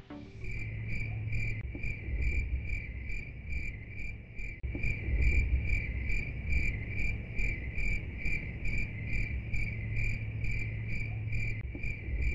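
Insect-like chirping: a high-pitched pulse repeating evenly about three times a second, over a low background rumble.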